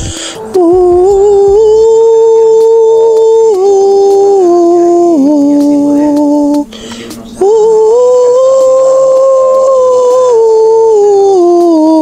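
Music: a slow melody of long held notes that step up and down in pitch, breaking off briefly twice.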